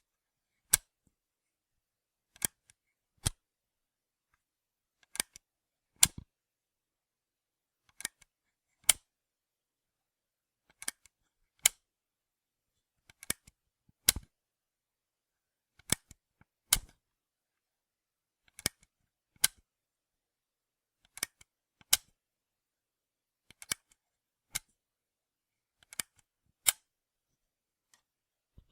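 A camera switch being flipped over and over: sharp clicks that come in pairs, the second click a little under a second after the first, with a new pair every two and a half to three seconds.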